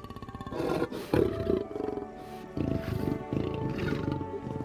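A lioness growling in several short bursts, warning off young cubs, over background music with long held tones.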